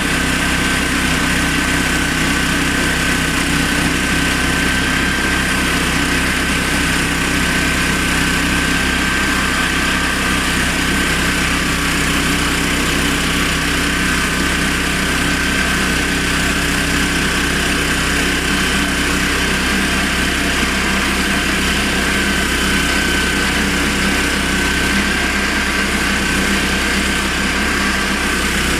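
Honda GX390 single-cylinder petrol engine running steadily at constant speed on a homemade portable sawmill, with a steady high whine over the engine note.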